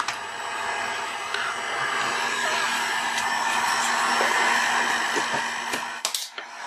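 Handheld hot air gun running, its fan blowing a steady rushing hiss of air; the sound briefly drops out near the end.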